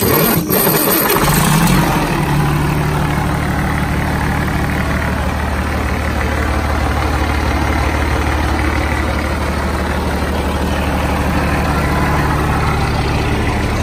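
A Detroit Diesel Series 60 14-litre inline-six diesel starts up. Its DDEC IV ECM is powered through a stand-alone wiring harness. It catches with a rough burst over the first two seconds or so, then settles into a steady idle.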